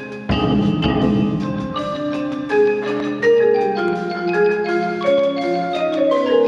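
Percussion ensemble playing: marimbas, vibraphone and other mallet instruments sound many overlapping notes. A low rumbling roll comes in a moment after the start and dies away by about two seconds in.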